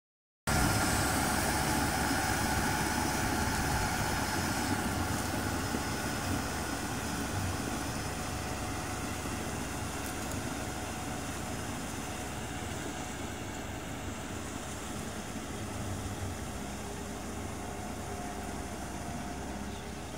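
Kubota M6040SU tractor's diesel engine running steadily while pulling a rotary tiller through flooded paddy mud. It grows gradually fainter as the tractor moves away.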